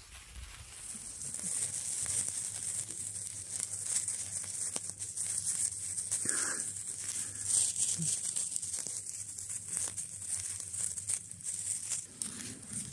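Handheld sparklers burning: a steady high fizz with fine crackling, starting about a second in.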